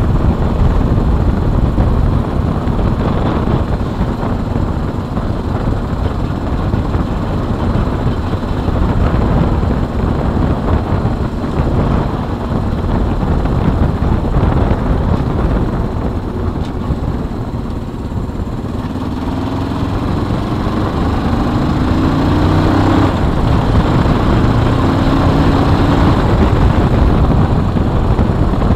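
Suzuki GS 500E's air-cooled parallel-twin engine running while the bike is ridden. About two-thirds of the way through, the engine note climbs, drops off, then climbs again as the bike accelerates through the gears.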